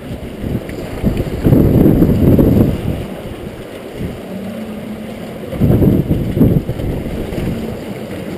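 River water rushing and churning through a rotary screw fish trap. Two louder low surges come about a second in and again near six seconds, and a short low hum sounds twice.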